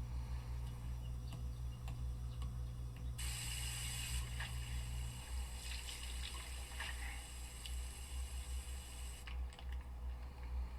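Water running from a tap into a sink. It starts about three seconds in and is cut off near the end, over a steady low hum.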